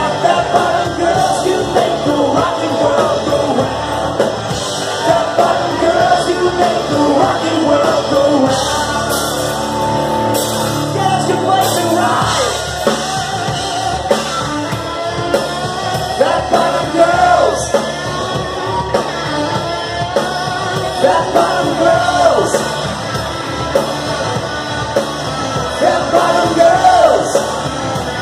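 Loud live rock band playing, with electric guitars and a drum kit, and a lead singer singing over them.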